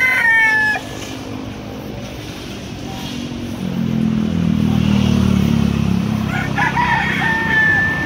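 Roosters crowing: one crow trails off under a second in, and another long crow comes near the end. In between, the low rumble of a passing motor vehicle's engine rises and falls.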